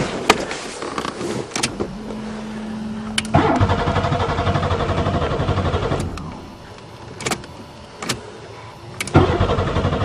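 Buick Regal's starter cranking the engine twice, each time for a couple of seconds, without the engine catching: a no-start. Clicks of the ignition key come between the cranks, and a brief steady hum sounds just before the first one.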